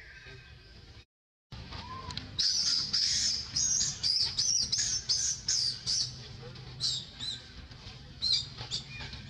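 A run of loud, high-pitched chirping calls, about two a second, then a few scattered single chirps. The sound cuts out completely for a moment about a second in.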